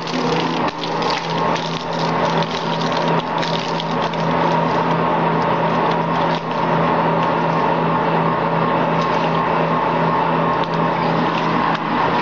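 Spraying machine running with its air pump on, a steady hum, while water sprays with a hiss from the spray gun: the hoses are being flushed and wetted with water before the mortar goes in.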